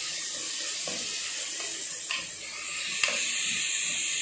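Chopped onions sizzling steadily in hot oil in an aluminium pressure cooker as they sauté, with a few strokes of a plastic ladle stirring and scraping the pan.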